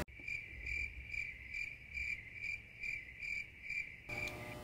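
Crickets chirping, used as a sound effect: high, evenly spaced chirps about two or three a second, which stop about four seconds in.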